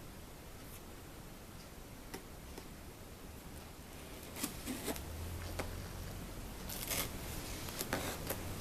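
Hands opening and handling a laptop's cardboard box: light clicks with short scraping and rustling strokes of cardboard and plastic, two louder scrapes about halfway through and near the end.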